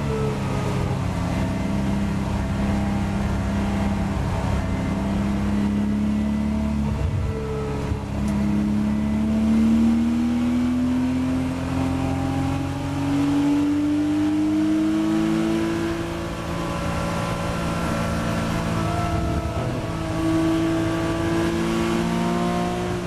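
Porsche Boxster race car's flat-six engine heard from inside the cabin, holding steady revs for the first few seconds, then climbing in pitch under full acceleration. The revs drop with an upshift about two-thirds of the way through and climb again.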